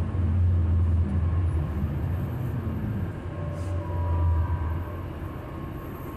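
A bus engine running, heard from inside the passenger cabin as a steady low hum. Its note rises and falls a little around the middle, and the hum eases off about five seconds in.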